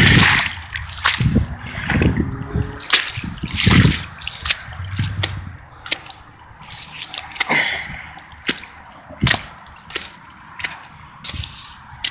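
Boots stepping in wet quicksand: irregular wet squelches and splashes as the feet sink and pull free, with sharp clicks in between.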